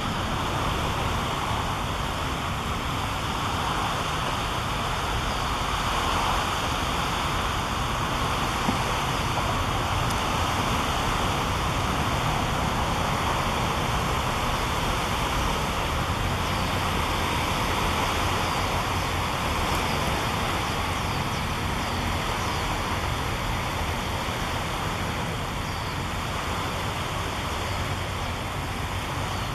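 Steady, even hum of distant road traffic, with no single event standing out.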